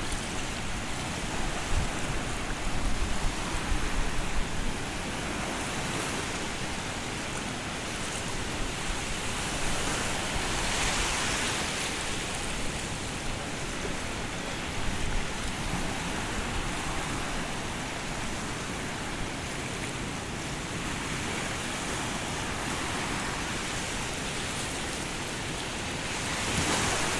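Roaring floodwater from the Mettur dam rushing in a steady, even rush, with a few low thumps in the first few seconds.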